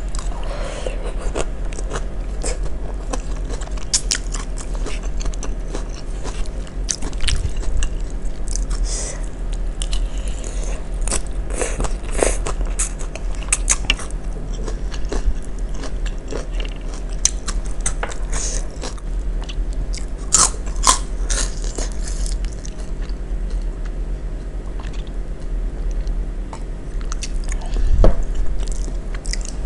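Close-miked chewing of crunchy raw vegetable salad (asinan sayur: shredded cabbage, bean sprouts and lettuce in peanut sauce), with irregular wet crunches throughout. One louder thump comes near the end.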